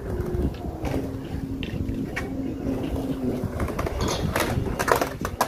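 Skateboard wheels rolling on a concrete bowl, a steady rumble as the skater carves, with a few sharp clacks of the board near the end.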